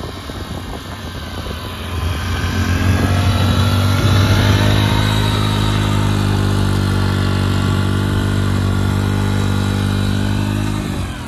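Small single-cylinder Hero Honda motorcycle engine revved hard in a burnout, its rear tyre spinning in loose dry soil. The revs climb over the first few seconds, hold high and steady, then drop away near the end.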